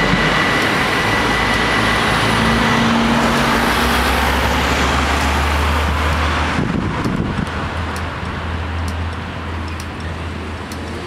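Stadler GTW diesel train's running noise carrying on loudly just after it has cleared the crossing, with a thin steady tone for the first few seconds. The noise drops away abruptly about six and a half seconds in, leaving a low hum and faint light ticks.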